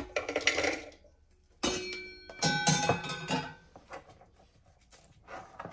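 Toasted cashews poured from a small metal pan into a plastic food processor bowl: a clatter of nuts, then a sharp metallic clank with a brief ringing about one and a half seconds in, followed by another clatter of nuts.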